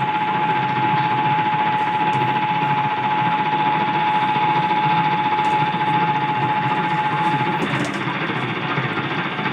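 Emergency Alert System attention signal: one steady tone held for several seconds and cut off abruptly about seven and a half seconds in, received over AM radio with a loud hiss of static under it that carries on after the tone stops.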